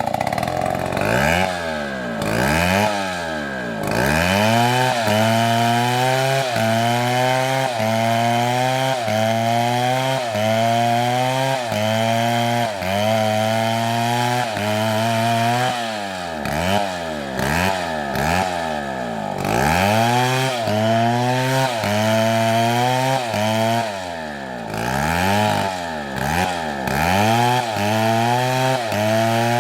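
Two-stroke chainsaw running under load as it cuts wood, its engine pitch dipping and rising about once a second. A few times it swings through deeper falls and rises.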